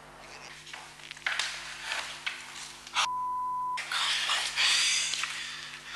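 Hushed, breathy whispering between two people, cut about three seconds in by a steady one-kilohertz censor bleep that blanks everything for under a second, typical of a broadcast bleeping out a swear word.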